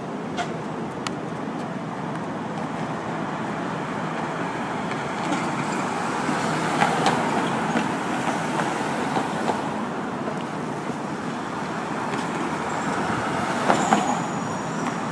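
Street traffic noise: a steady wash of passing vehicles with a few sharp clicks. A brief high squeal, like a brake, comes near the end.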